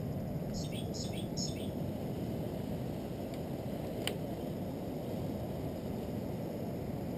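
Steady low rumbling noise of wind buffeting an action camera's microphone. About half a second to a second and a half in come three short high chirps, and a single sharp click sounds about four seconds in.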